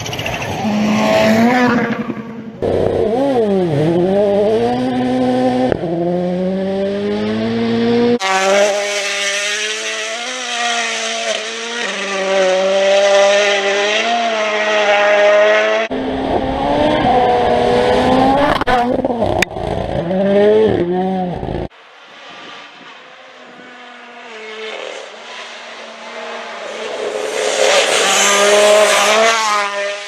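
WRC Rally1 cars' turbocharged engines at high revs passing on a gravel stage in several separate runs, the engine note dropping and climbing sharply with throttle and gear changes. A final car is heard faintly about two-thirds of the way in and grows loud as it approaches near the end.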